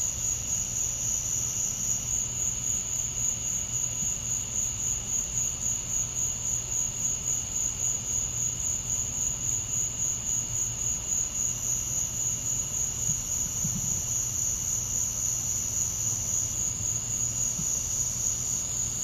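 Crickets chirping in a continuous, rapidly pulsing high-pitched chorus, over a faint low hum.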